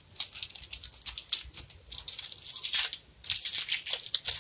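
Dried bay leaves being crumpled and torn apart by hand: dry crackling rustles in irregular bursts, with a short pause about three seconds in.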